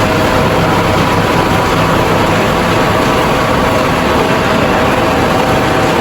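Rice milling machine running steadily and loudly, a constant mechanical din with a few steady hums in it.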